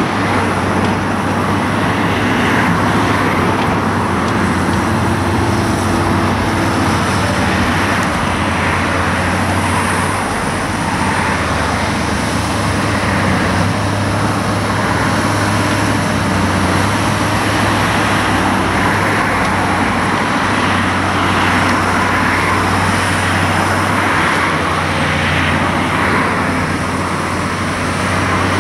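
Komatsu 160 hydraulic excavator's diesel engine running steadily while it digs, a constant low drone mixed with the noise of road traffic.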